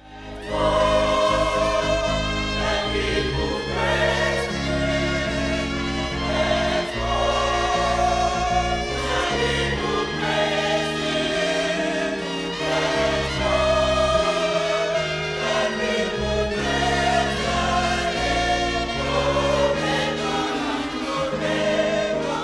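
A choir singing gospel music over held instrumental chords, stopping quickly near the end.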